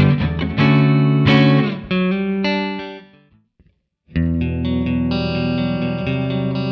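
Fender American Performer Stratocaster played clean through a modelled Fender Twin Reverb amp, recorded direct: picked notes and chords that fade out to a brief silence about three seconds in, then a fresh chord rings out with notes picked over it.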